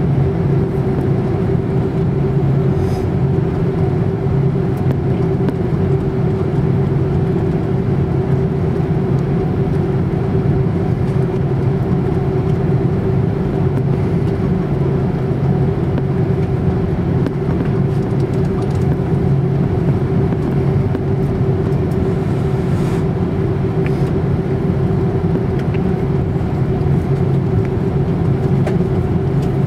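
Airbus A330-300's Rolls-Royce Trent 700 turbofan engines running at low taxi thrust, heard from inside the cabin over the wing as a steady hum with a few held tones that neither rise nor fall.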